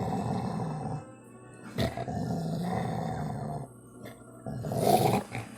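A pitbull–German Shepherd mix dog growling low: one rumble about a second long, then a longer one after a short pause, followed by a brief noisier sound near the end.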